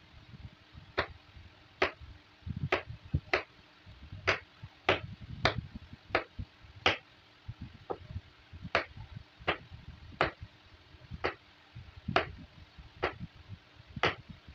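Kitchen knife chopping peeled bottle gourd on a wooden cutting board: a crisp tap each time the blade goes through and meets the board, a little more than one a second, with softer low thuds between.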